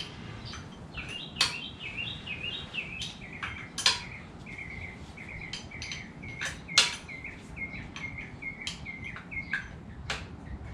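Sharp metallic clinks of hand tools and engine parts being set down and handled, the loudest three about 1.5, 4 and 7 seconds in, over a bird chirping rapidly and repeatedly.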